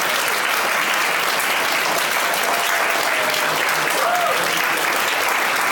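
A roomful of guests applauding steadily, with a voice or two calling out partway through.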